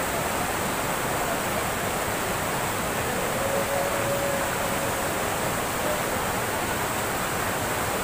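Waterfall and cascading stream rushing over boulders, a steady loud wash of white water.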